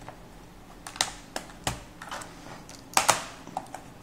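Sharp plastic clicks and clatter from an Acer TravelMate 7520 laptop keyboard as a screwdriver pushes in its retaining tabs and the keyboard is prised up. The clicks come irregularly, the loudest a close pair about three seconds in.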